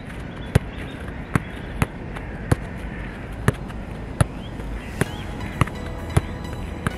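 Football being passed and controlled on grass: about ten sharp kicks and touches of the ball at uneven intervals, a second or less apart.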